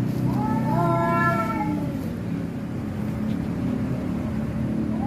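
A cat meowing: one long drawn-out meow that rises and then falls in pitch, over a steady low rumble, with the next meow just starting at the end.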